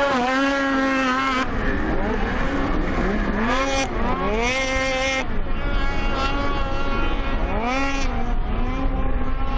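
Racing snowmobile engine revving hard, its pitch climbing and dropping several times as the throttle is opened and closed through the track's turns and jumps.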